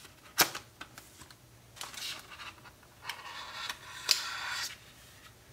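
Packaging being handled during a phone unboxing: a sharp click, a few light ticks, then two stretches of scratchy rustling and scraping with another click near the end.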